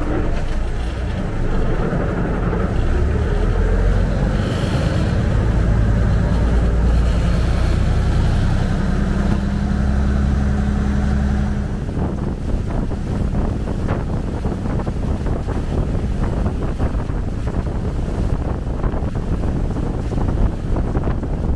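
Canal taxi boat's engine running loud and deep, its note climbing as the boat gets under way. About twelve seconds in, the engine note drops back and rushing, splashing water and wind buffeting the microphone take over.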